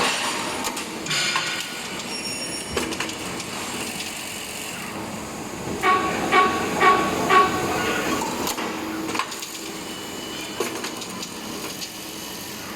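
Automated screwdriver-making CNC machine running, with air hiss, scattered mechanical clicks, and a run of four ringing strokes about half a second apart midway through.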